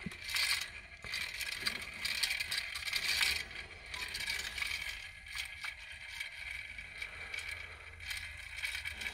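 Garrard 86 SB record deck's motor running with a steady low hum and an irregular metallic rattling, a bit noisy. The rattle is a fault inside the motor, which is rattling like a set of marbles.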